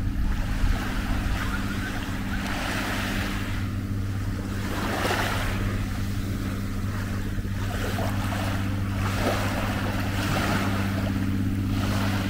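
Small sea waves washing in, swelling and falling back every two to three seconds, over a steady low hum.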